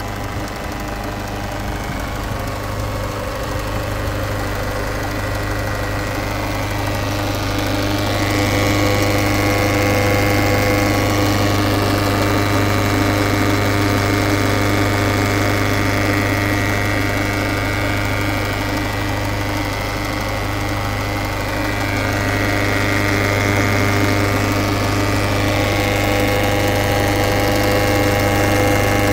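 Peugeot 508 SW's 2.0 HDi four-cylinder diesel engine running steadily, with a high whine over the engine note that grows louder about eight seconds in and again a little after twenty seconds. It is an unidentified weird noise whose cause the owner does not know.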